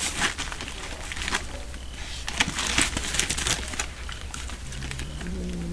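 Scattered crackling and rustling of animals moving and foraging among dry bones and plastic litter, over a steady low hum. Near the end a low pitched tone rises and then holds for about a second.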